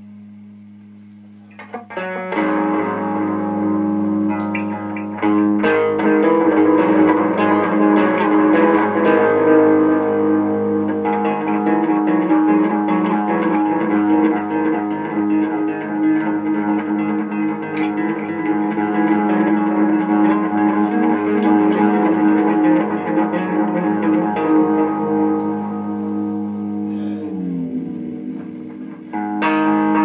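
Electric guitar played through a Randall amplifier and cabinet: sustained chords and single notes ringing out, the playing picking up about two seconds in and growing louder a few seconds later. Near the end the pitch slides down before a new chord is struck.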